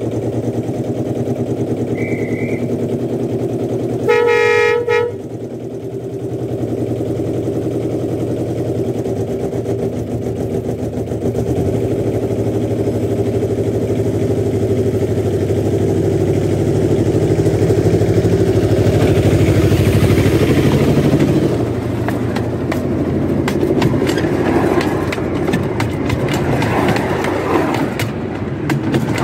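Miniature railway locomotive's engine running steadily, with one horn toot about four seconds in. The engine grows louder as the locomotive moves toward the track-level microphone and passes over it, with rapid clicking and rattling near the end.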